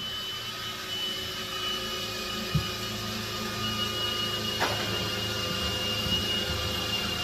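A motor-driven machine running steadily with a constant high whine over a low hum, with two short knocks about two and a half and four and a half seconds in.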